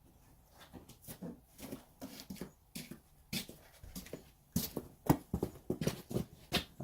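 Irregular rustling and clicking of handling, getting busier and louder in the second half, as the plastic tire-plug tools of a cheap slime kit are dug out of a bag and handled.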